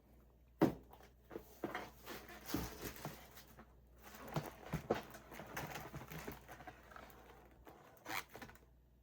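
A parcel being unpacked by hand: irregular rustling, scraping and tearing of packaging with scattered knocks, the sharpest about half a second in and another near the end.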